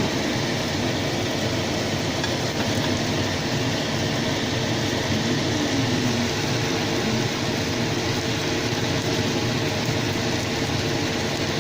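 Bean sprouts frying in a pan, a steady sizzling noise with a faint steady hum underneath.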